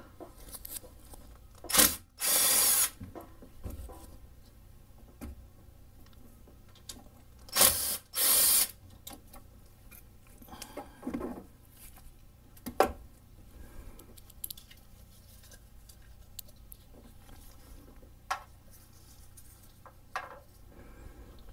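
A power tool with a socket spinning out the bolts that hold the LS V8's lifter trays, in two short bursts about 2 s and 8 s in. Light clicks and tool clatter come between them.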